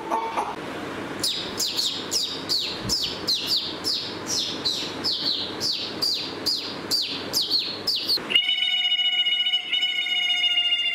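A man imitating bird calls with his mouth and cupped hand. First comes a quick series of short falling whistles, about three a second. From about eight seconds in there is a long, steady trill, mimicking the white-throated kingfisher.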